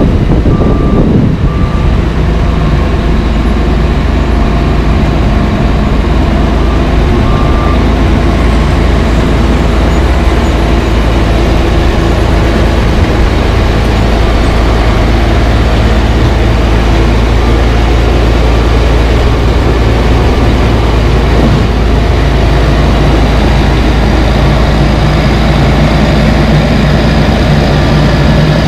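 Caterpillar 140H motor grader's diesel engine running loud and steady as the grader works close by, its blade pushing gravel sub base. A backup alarm beeps on and off during the first several seconds.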